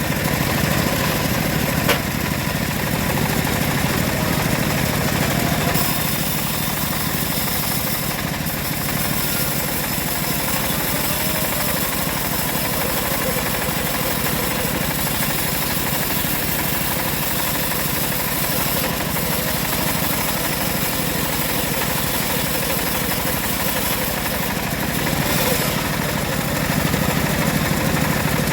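Engine-driven homemade bandsaw mill running steadily while sawing teak: a continuous engine drone under a high, steady hiss that grows brighter about six seconds in.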